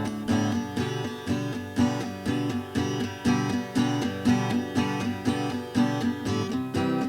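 Instrumental music: strummed acoustic guitar chords over a steady beat.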